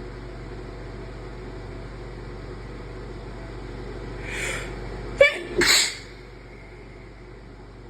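An induced sneeze: a breathy build-up about four seconds in, then a sharp short burst and a longer release right after it.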